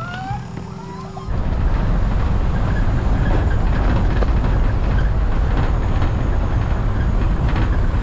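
A car driving along a road: a loud, steady rumble of engine, tyre and wind noise that cuts in suddenly about a second in, after a quieter stretch with a few short rising chirps.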